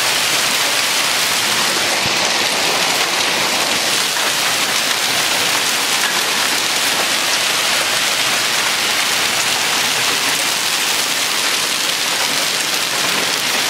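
Heavy hail with rain pelting down in a dense, steady hiss.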